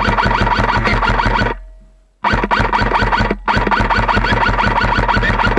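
Loud music with a fast, steady beat. It fades out about a second and a half in, comes back abruptly about two seconds in, and cuts off suddenly at the end.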